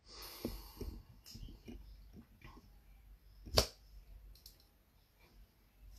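Faint small knocks and rustles, with one sharp click about three and a half seconds in.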